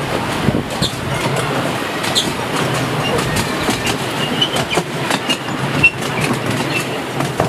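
Miniature railway passenger carriages running along the track, heard from on board: a steady rumble from the wheels with frequent clicks over the rail joints and a few brief high wheel squeals.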